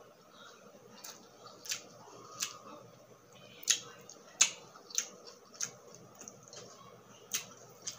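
Close-miked chewing and wet mouth smacks as someone eats grilled skewered street meat, with about eight sharp, irregular clicks over a quiet background.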